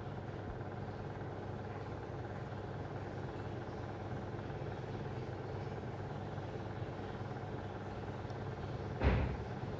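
Steady low background noise with a faint hum and no speech. Near the end comes one short, muffled burst of noise on the microphone.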